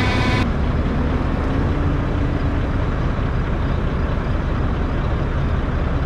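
Diesel harvest machinery running steadily: a low engine hum under a broad rushing noise. A steady whine cuts off abruptly about half a second in.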